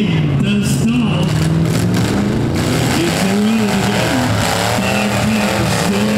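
V8 engines of demolition derby cars revving up and down. There are sharp knocks in the first couple of seconds.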